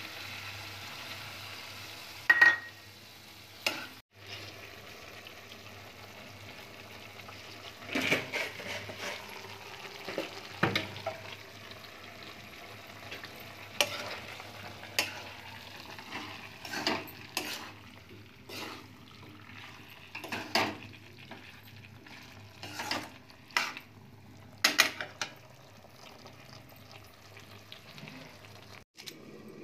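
Metal ladle stirring and scraping through a steel kadhai of vegetable sabzi, with scattered clinks of metal on metal over a faint steady sizzle. A sharp, ringing clink of a steel lid comes about two seconds in and is the loudest sound.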